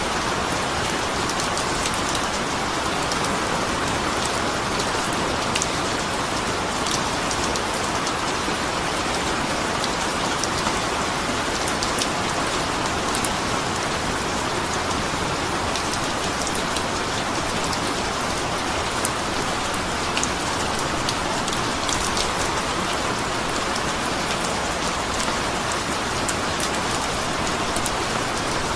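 Steady rain falling, an even hiss with many fine drop ticks scattered through it.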